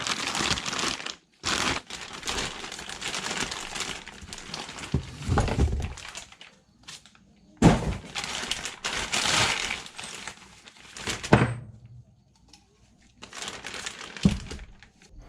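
Irregular crinkling and rustling of things being handled, in stretches with short pauses, with a few sharp knocks.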